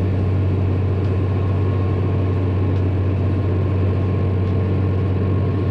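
Engine of a large farm machine running steadily at constant speed, a low, even drone with no change in pitch.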